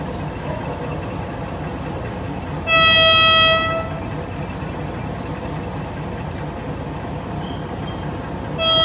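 Philippine National Railways train sounding its horn over a steady running rumble: one blast of about a second, then a second blast starting near the end.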